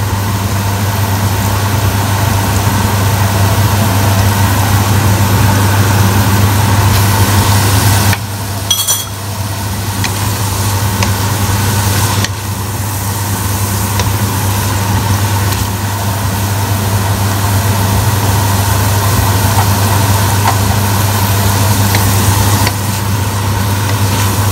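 Sautéed bitter gourd with scrambled egg and tomato sizzling in a pot as it is stirred with a wooden spoon, over a steady low hum. The sizzle dips briefly about eight seconds in.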